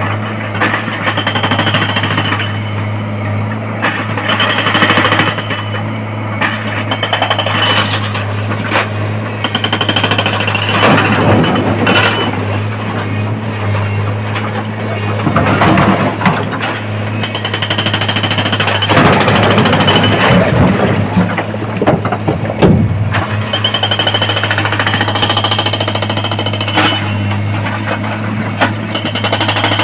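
Hydraulic rock breaker on a Tata Hitachi excavator hammering rock with rapid blows, in spells, loudest around the middle. The excavator's diesel engine runs steadily underneath.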